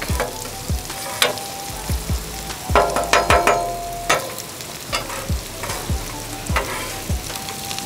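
Bacon and potatoes sizzling on a Blackstone steel flat-top griddle, with a metal spatula repeatedly clacking and scraping against the hot plate. The strokes are loudest and briefly ringing about three seconds in.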